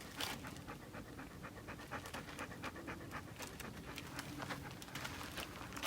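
Greyhound panting in quick, even breaths.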